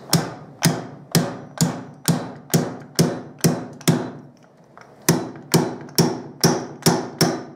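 Steel weighted block of a slide-hammer fork seal driver slamming down about fifteen times, roughly two strikes a second with a brief pause midway, each a sharp metal impact with a short ring. It is driving the bush and washer into the 43 mm upside-down fork tube until they bottom in their seat, which the note signals by turning more metallic and less thuddy.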